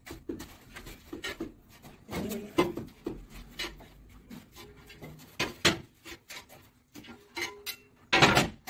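Irregular scrapes, knocks and clinks of wall-tiling work: tiles being handled, buttered with adhesive and pressed and tapped onto the wall. A louder short scrape comes near the end.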